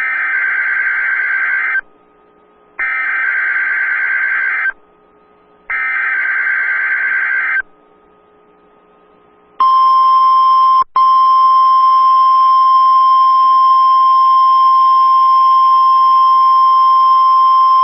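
NOAA Weather Radio alert test: three short screeching SAME digital header bursts, each about two seconds long and a second apart, then the steady 1050 Hz warning alarm tone, held about nine seconds with a momentary break shortly after it starts.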